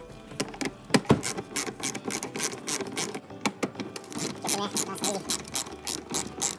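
Irregular metallic clicking, several clicks a second, from a socket tool working a 10 mm bolt out of the wheel-arch lining.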